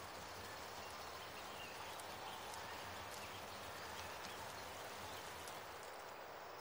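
Faint, steady trickle of water running over rock, with a few faint bird chirps and light ticks.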